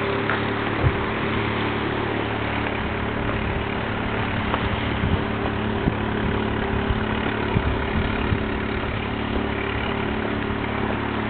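Wind buffeting the microphone, a steady rushing noise with scattered low thumps, over a constant low hum.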